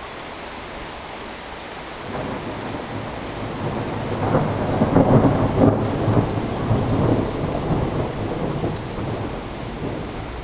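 Heavy rain falling steadily, with a long roll of thunder that swells about two seconds in, is loudest in the middle with some crackle, and fades away toward the end.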